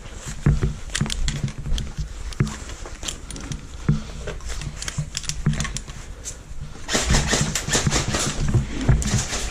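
Airsoft guns firing in close quarters: scattered sharp snaps and clicks, then a dense, fast rattle of shots about seven seconds in.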